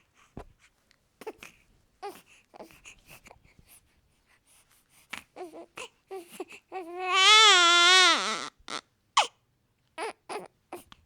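Newborn baby fussing with short whimpers and catches of breath, then one loud, wavering cry about seven seconds in that lasts about a second and a half, followed by more short fussy sounds.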